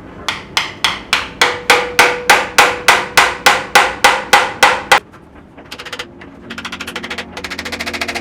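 A hammer striking metal in a steady run of sharp ringing blows, about four a second, for around five seconds. After a short pause, a fast machine-like rattle starts about six seconds in.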